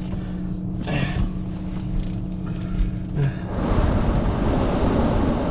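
An engine running with a steady hum; about three and a half seconds in, a louder rushing noise swells up and covers it.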